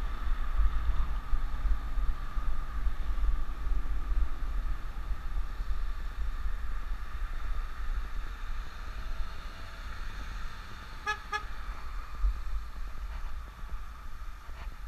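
Wind rumbling on the microphone of an e-bike riding along a road, with steady road noise. About eleven seconds in, a horn gives two short toots in quick succession.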